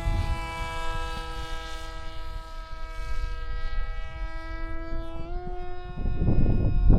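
Electric motor and propeller of a foam-board RC plane, a steady whine that steps slightly higher in pitch about five seconds in. Near the end a loud low rushing noise, like wind on the microphone, covers it.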